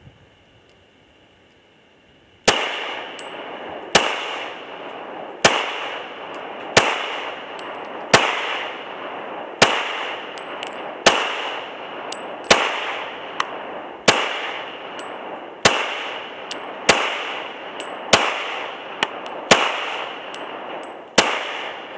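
Glock 23 .40 S&W pistol firing fourteen single shots, about one every second and a half, each echoing off the woods, with short high pings after several of them.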